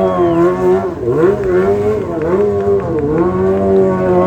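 Motorcycle engine running at high revs, its pitch dipping and climbing back several times as the throttle is worked during stunt riding.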